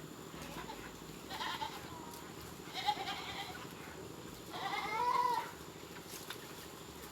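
An animal calling three times in short, wavering cries, the third the longest and loudest, over a steady low background noise.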